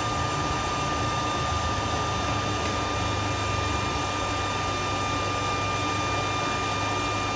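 Cheap blow dryer serving as the blower of a home-made forge, running steadily: a rush of air with a steady high motor whine.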